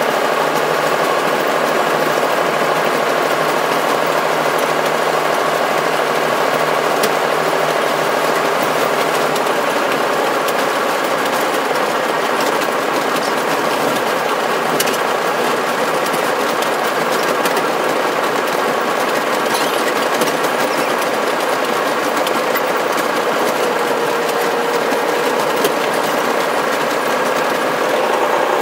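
Locomotive running steadily, heard from inside the cab: a loud, unbroken mechanical hum and rattle that holds level throughout.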